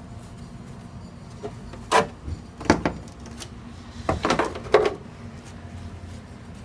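A few short strokes of sandpaper scraping a metal refrigerator part by hand, one about two seconds in, another shortly after, then a quick cluster of strokes a little past the middle.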